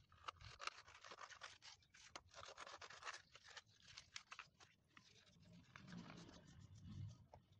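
Newspaper sheets faintly rustling and crinkling as they are handled and folded, a run of quick scratchy crackles. Near the end the sound turns duller and lower as the paper is pressed and moved on the table.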